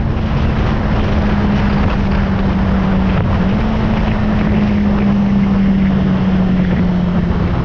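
Honda CBR600RR's inline-four engine running at a steady cruise, its note dipping briefly and stepping up a little about three seconds in, then slowly sagging. Wind buffeting on the bike-mounted microphone runs under it.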